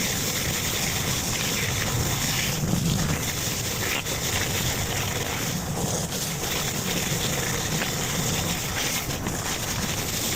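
Steady hiss of a pressure washer's water jet blasting patio slabs.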